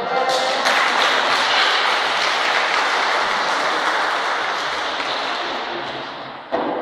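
Audience applauding, which swells quickly and then dies away gradually over the last few seconds.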